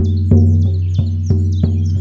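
16-inch deerskin shamanic frame drum struck with a soft beater in a steady beat of about three strokes a second, each stroke ringing on in a deep boom. Birds sing in the background.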